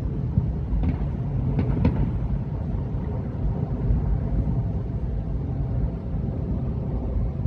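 Many distant fireworks merging into a continuous low rumble like rolling thunder, with a few sharper nearer pops about a second to two seconds in.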